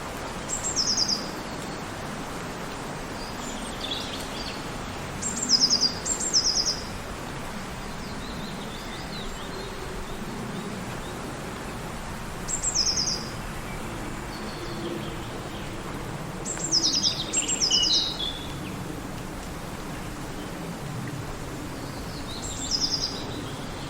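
Steady wind hum through a forest, with birds calling every few seconds in short, high trills that fall in pitch, some coming in pairs.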